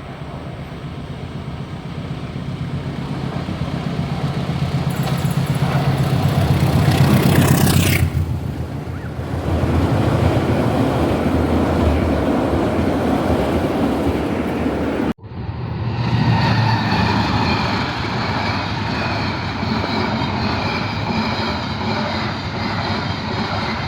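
A train running past, its noise building steadily to a peak, with a gliding high whine near the loudest point. It breaks off abruptly, and another stretch of train running follows with a steady hum of several tones.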